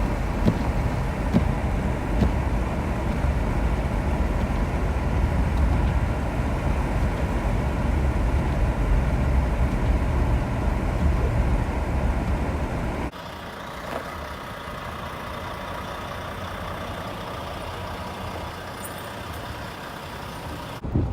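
Motor vehicle running: a steady low rumble with road noise, which drops abruptly to a quieter steady hum about two-thirds of the way through.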